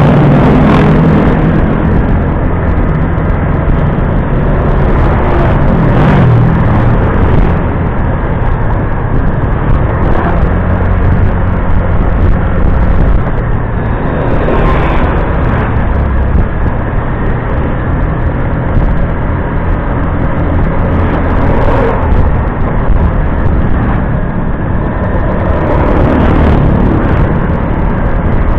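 Motor scooter under way: steady engine and road noise, with rushing air on a handlebar-mounted microphone.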